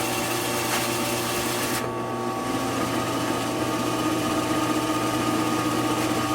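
Drill press running at about 1,500 rpm with a Forstner bit for boring plywood: a steady motor hum over an even hiss, the high hiss thinning about two seconds in.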